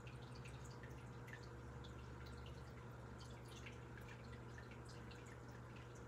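Quiet room tone: a steady low hum with faint, irregular small ticks scattered through it.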